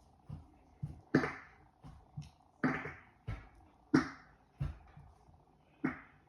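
A string of short, sharp fart noises made by a person: four loud ones spaced a second or two apart, with softer, lower ones in between.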